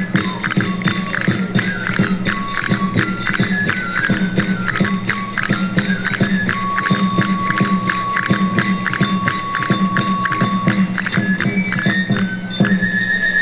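Traditional charro folk music from a three-hole gaita charra and tamboril: a high pipe melody, with one long held note midway, over fast, steady drumbeats.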